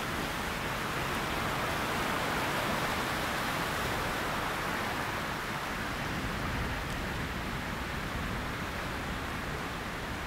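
Steady, even rushing noise with no distinct events, swelling a little a few seconds in and easing slightly toward the end.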